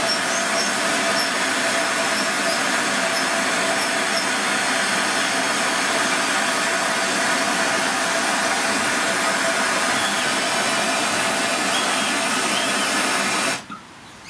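Blowtorch flame running with a steady loud hissing rush, then shut off abruptly near the end.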